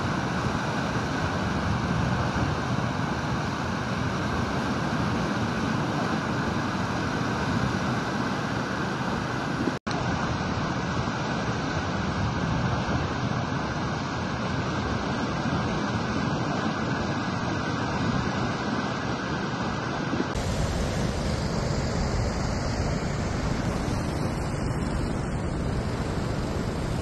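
Floodwater rushing through a breach in an earthen dam embankment, a steady roar like a waterfall. The sound cuts briefly and changes slightly twice, about ten and twenty seconds in.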